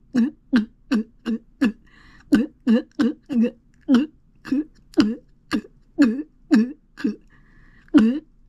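Glugging mouth sounds made in the throat: short, low gulps repeated in a steady rhythm of about two to three a second, broken by two brief pauses.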